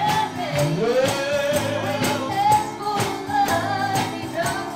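Live gospel singing in the congregation: a voice holding long notes over accompanying instruments, with a tambourine struck on a steady beat about twice a second.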